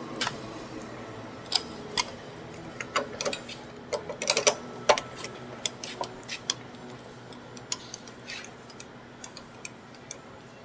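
Irregular metallic clicks and clinks of a crank handle turning the stroke-length adjustment shaft of a metal shaper, shortening the ram's stroke. The clicks come thickest a few seconds in, over a faint steady hum.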